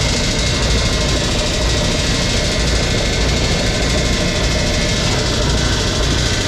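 Heavy truck's diesel engine idling steadily. It is running now that the fault behind the no-start has been found: loose battery connections.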